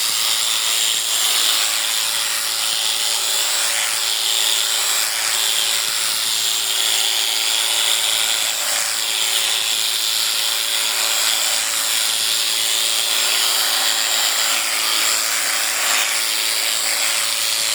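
Electric sheep-shearing clipper running steadily, a continuous high buzz with no break.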